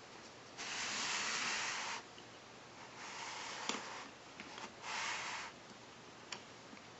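Cranky crane toy from a wooden train set being wound by its hand crank: three bursts of rough scraping whirr, about a second and a half, a second and half a second long, with a few small plastic clicks between them.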